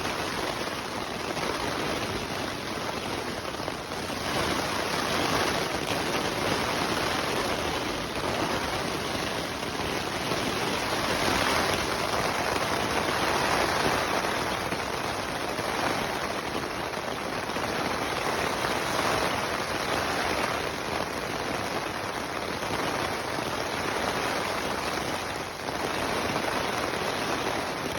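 Steady rain drumming on tent fabric, a dense even patter that swells and eases a little every few seconds.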